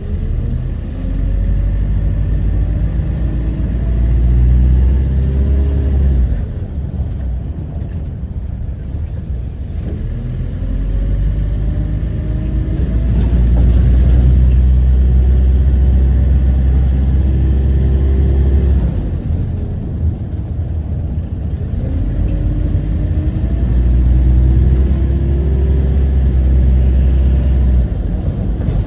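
Optare Solo Versa bus heard from on board, pulling away three times. Each time its diesel engine note climbs and a high whine rises and holds, the 'hoover' sound, then falls away as the bus eases off between pulls.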